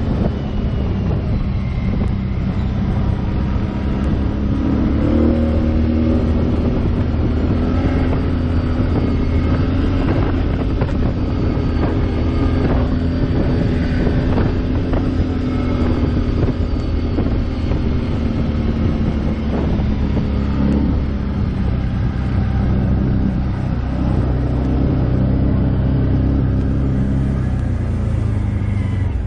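ATV engine running as the quad rides along, heard up close from the machine itself. Its pitch steps up about five seconds in, holds steady, and drops back about twenty seconds in.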